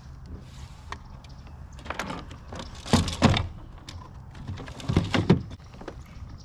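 Clunks and rattles of fishing gear being handled against a kayak hull: two loud bursts of knocks about three and five seconds in, with lighter knocks between.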